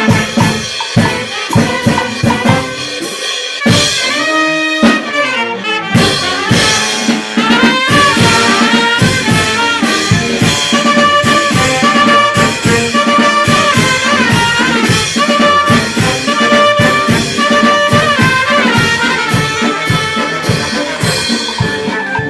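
Brass band playing a pasodoble: trumpets and trombones carry the melody over a steady drum-kit beat, with the drums dropping out briefly about four seconds in.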